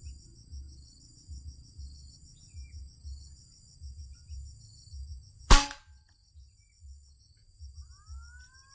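A single sharp gunshot about five and a half seconds in, fired at a green pigeon, with a brief ring-out, over a steady pulsing buzz of insects. A bird gives a couple of short rising calls near the end.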